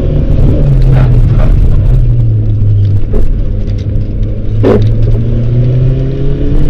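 Subaru Justy AWD rally car's engine heard from inside the cabin under hard driving: the revs drop about a second and a half in, hold, then climb again near the end. A few short knocks cut through the engine sound.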